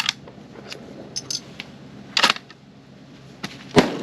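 A few sharp clicks, then near the end a single loud rifle shot with a trailing echo: a Czech VZ-24 Mauser firing an 8mm Mauser (7.92x57mm) hand load.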